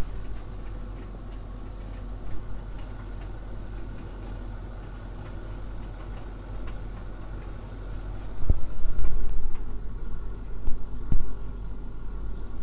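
Siemens Siwatherm TXL 2500 tumble dryer running a drying cycle with a load of towels: a steady low hum of the motor and fan with the drum turning. About eight seconds in it grows louder and rougher for a couple of seconds, with a few dull thumps.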